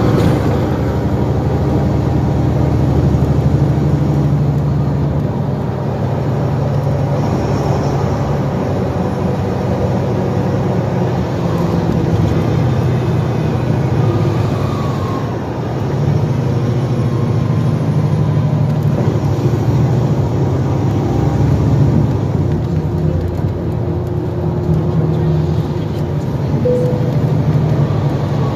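Diesel engine of a 2012 NABI 416.15 transit bus running while the bus is under way, heard from on board. The low drone swells and eases as the bus pulls and slows, with faint rising and falling whines from the drivetrain and a short high tone near the end.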